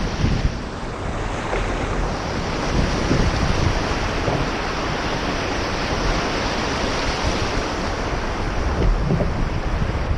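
Steady wind buffeting the microphone over the wash of the sea, a dense rumbling hiss without any clear tone.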